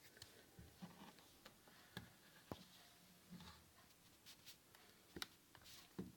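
Faint scattered clicks and handling noises, with a few sharper clicks about two seconds in and again near the end, as a USB Type-C cable connector is handled and pressed into its port.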